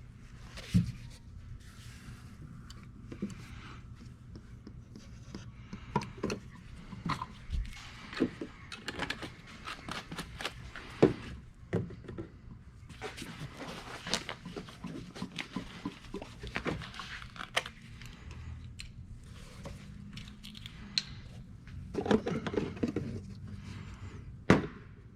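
Irregular knocks, clicks and thunks of hands and plastic oil bottles being handled while motor oil is added to the engine, over a steady low hum.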